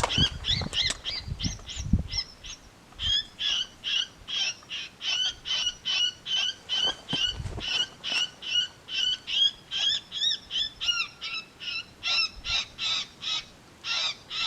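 Electronic predator call (FoxPro X24) playing a prey-distress sound: high, squealing calls repeated evenly at about two a second, looping steadily. A few low knocks of handling sound in the first two seconds.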